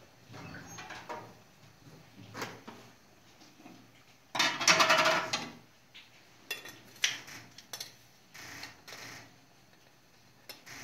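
Kitchen handling sounds: a metal spoon clinking against a glass jar and scraping through the granules inside, among several short knocks and rattles. The busiest, loudest rattle comes about four seconds in.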